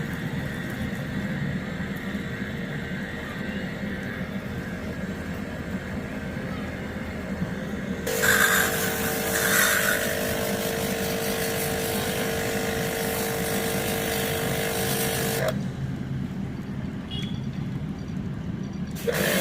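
Air-conditioner service water-jet pump running with a steady low hum. From about eight seconds in, a loud spraying hiss with a steady motor whine joins for about seven seconds and then cuts off suddenly.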